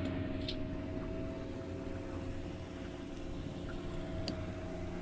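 A steady mechanical hum: a low drone with a faint steady whine above it, and a couple of faint light clicks.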